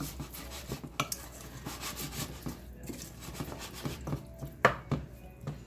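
Wooden spoon stirring a thick meat dressing mix in a stainless steel pot: a run of soft scrapes and clacks against the pot, with a few sharper knocks about a second in and near the end.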